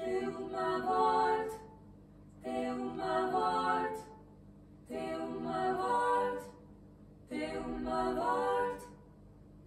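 Small group of women's voices singing a cappella in harmony: four short phrases, each about a second and a half long, with brief pauses between them.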